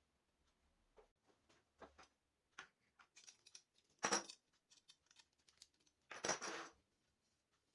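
Small clicks and taps from hand tools and wood pieces being handled at a workbench, with two louder brief scrapes about four and six seconds in.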